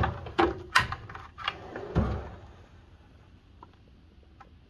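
Steel tool-chest drawers of a U.S. General 72-inch toolbox sliding on their runners and clunking, with tools rattling inside: a quick run of clicks and knocks that ends about two seconds in.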